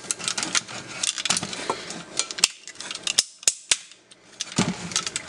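Hard plastic parts of a Transformers Armada Jetfire toy clicking and snapping as its legs are swung and locked into place. The clicks come irregularly, with a few sharp, louder single clicks past the middle.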